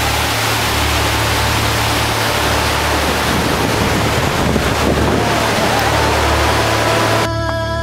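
Loud, steady rushing of a fast white-water river with wind buffeting the microphone, faint background music beneath it. Near the end the rushing cuts off suddenly, leaving only the music.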